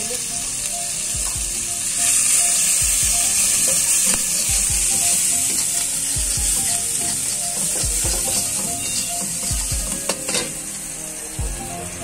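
Eggs frying in hot oil in a steel wok, sizzling steadily and growing louder about two seconds in, while a metal spatula stirs and scrapes against the pan a few times.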